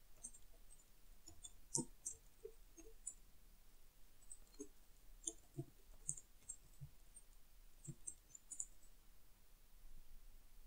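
Faint, irregular keystrokes on a computer keyboard mixed with mouse clicks.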